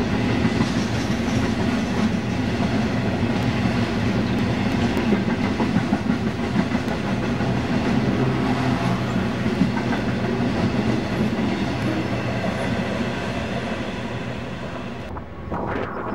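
A long rake of EWS freight wagons rolling past at speed: a steady rumble of wheels on the rails with occasional clicks. It eases off slightly towards the end and cuts off about a second before the end.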